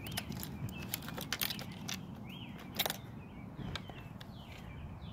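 Storm ambience: a low steady rumble of wind under small birds chirping in short repeated calls, with scattered sharp taps, most of them in the first three seconds.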